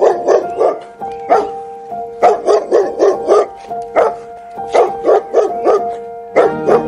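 A dog barking repeatedly in quick runs of three to five barks, over background music that holds steady notes.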